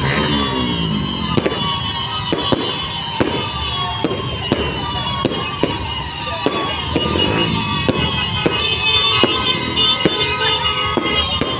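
Aerial fireworks going off in quick succession, with repeated sharp bangs over high whistling tones that fall slowly in pitch, typical of spiralling whistle rockets.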